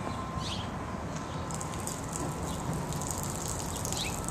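Outdoor wind rumbling on the microphone over a steady background hiss, with a couple of short, faint high chirps.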